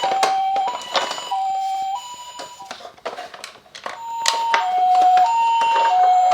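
Ambulance siren in the Japanese two-tone pattern, a high and a low tone alternating about every half second, drops away near the middle and then resumes. Light clicks and knocks run through it.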